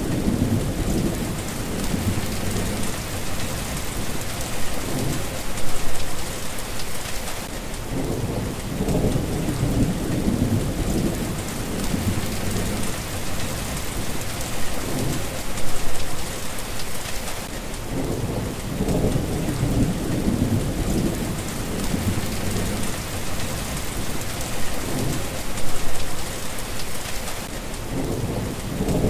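Steady rain hissing, with low rolls of thunder that swell and fade three times, about ten seconds apart.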